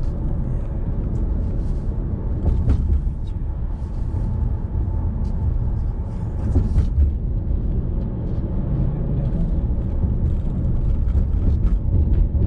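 Car driving on the road, a steady low rumble of road and engine noise with a few faint clicks.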